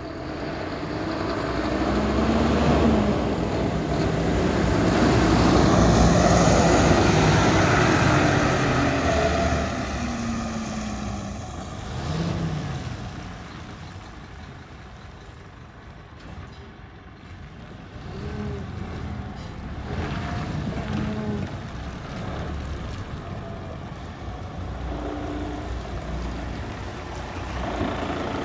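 2012 Scania P230 truck's five-cylinder diesel engine under way, getting louder as the truck comes close, then fading as it drives away. The engine pitch rises and falls a few times as it goes.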